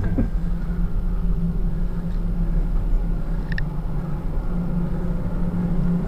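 Elevator car running as it climbs: a steady low hum over a deep rumble, with a short high beep about halfway through.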